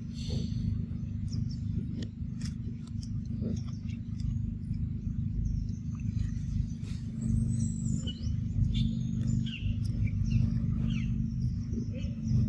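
Forest ambience: a steady low rumble with scattered faint chirps and clicks, which grow busier in the second half.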